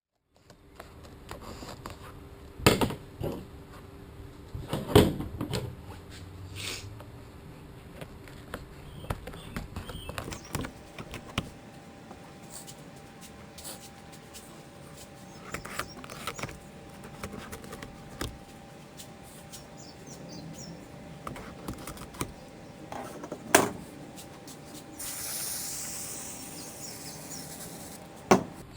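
Handling noises from work on a car headliner: scattered knocks and thumps, four of them much louder than the rest, over a faint steady hum. Near the end comes a hiss lasting about three seconds.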